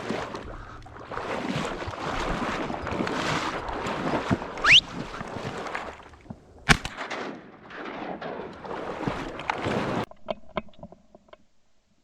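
Kayak paddle strokes swishing and splashing through marsh water, with a brief rising squeak about halfway and one sharp knock a little later. The paddling cuts off suddenly near the end.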